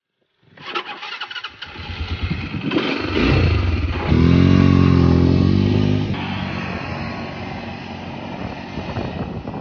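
Quad bike engine coming in suddenly, revving up to its loudest about four to six seconds in, then easing back to a steadier run.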